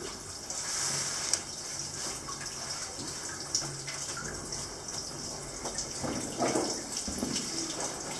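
Steady rush of running water from the cave's underground stream, with a couple of sharp knocks, typical of boots on rock, about a second and three and a half seconds in.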